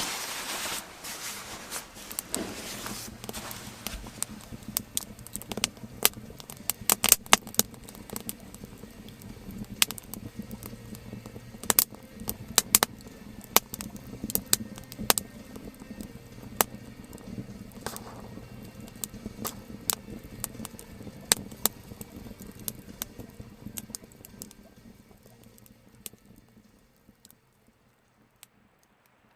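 Wood fire crackling with irregular sharp pops over a low steady hum, dying away near the end.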